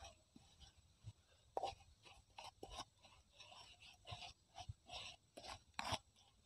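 Faint, irregular scraping and crushing strokes of a pestle grinding wet chili sambal against a non-stick pan, with a few sharper knocks, the sharpest about a second and a half in and near the end.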